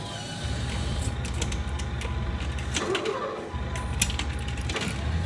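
Claw machine's crane motor running in two spells with a low hum, broken by sharp clicks and a louder knock near the middle of the second spell, over arcade background noise.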